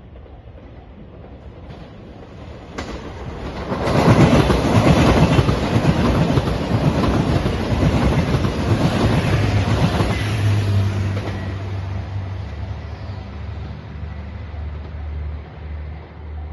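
JR Shikoku 2700 series diesel express train passing at speed, its wheels clattering over the rail joints. The noise swells to its loudest for about six seconds, then a lower steady diesel hum carries on and fades as the train goes away.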